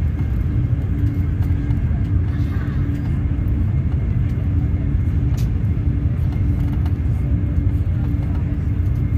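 Interior running noise of a Eurostar high-speed train at speed: a steady low rumble with a faint constant hum.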